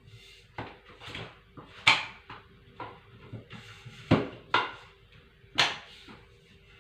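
Parts of a cleaning tool and its pole being handled: a string of knocks, clicks and clatters, the loudest about two seconds in and three more between four and six seconds in.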